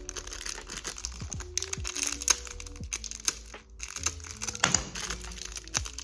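Background music with held notes and a steady beat, over light clicking and crinkling from small parts being handled.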